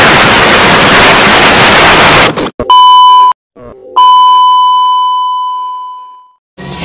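Television static and test-tone sound effect: a loud hiss of TV static for about two and a half seconds, then a short, high, steady beep of the colour-bars test tone, a brief break, and a longer test-tone beep that fades away.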